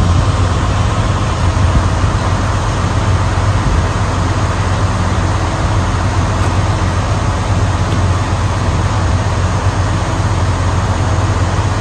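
Diesel truck engine idling, a steady low drone that holds level throughout.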